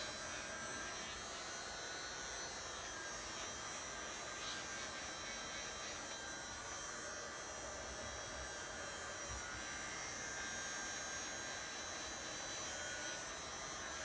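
Ungar heat gun running steadily, its fan motor whirring and blowing hot air to shrink heat-shrink tubing over a bullet connector.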